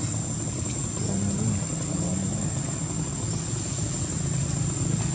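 Steady low outdoor rumble with a constant thin high-pitched tone over it.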